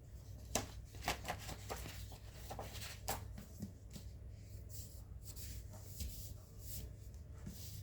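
Pages of a hardcover book being leafed through and handled, giving a series of irregular paper rustles and soft flicks.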